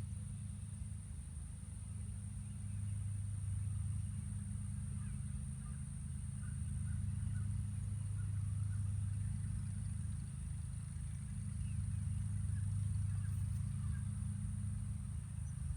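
A horse's chest heard through a stethoscope: low, muffled heart and lung sounds that swell and fade slowly every few seconds.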